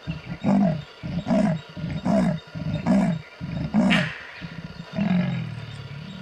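Leopard giving its sawing call: a series of deep grunts about one a second, then a longer drawn-out grunt about five seconds in.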